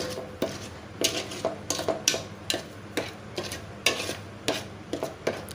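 Ladle stirring thick mango pulp and sugar in a metal kadai, scraping the pan about two to three times a second as the sugar melts into the hot pulp.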